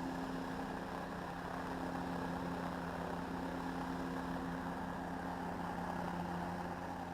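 An engine idling steadily, a low even hum with a fast rhythmic rumble beneath it.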